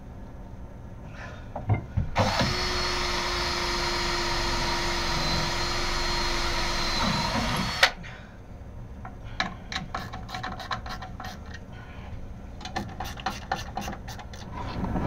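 Cordless drill run steadily for about six seconds, with a steady whine, driving a bolt into the electric motor's mount; then a run of short clicks and knocks as the bolt is worked by hand.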